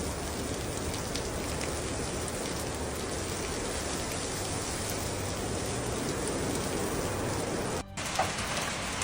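Heavy storm rain and hail falling on hard surfaces, a steady dense hiss. It cuts out for an instant near the end and comes back with a few sharper hits.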